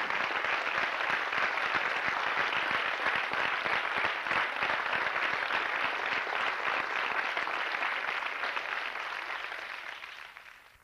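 Theatre audience applauding, a dense steady clatter of many hands that fades out near the end.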